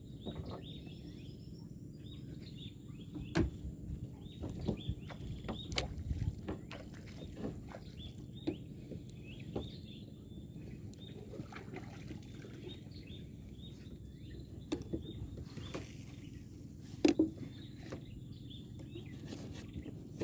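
Quiet outdoor ambience on a small boat: faint bird chirps come and go over a steady low rumble, with scattered sharp knocks and clicks, the loudest about three, six and seventeen seconds in.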